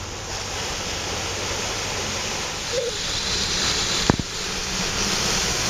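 Water rushing and splashing around an off-road 4x4 as it wades through deep water, with a single sharp knock about four seconds in.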